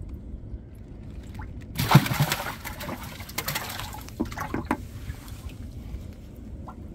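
Water splashing and dripping as a gill net is hauled up out of the river into a boat: a sudden loud splash about two seconds in, then sloshing and trickling with a few sharp knocks.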